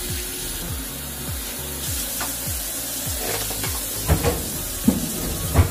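Background music with a steady low beat about twice a second over a faint sizzling hiss, with a few sharp knocks near the end.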